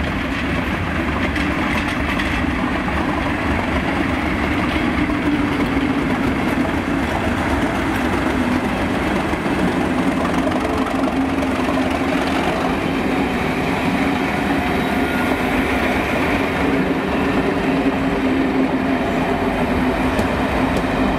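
Class 37 diesel locomotive 37421, with its English Electric V12 engine, running as it comes past, followed by its coaches rolling by on the rails. The sound is a steady, continuous engine and wheel noise with a held low tone throughout.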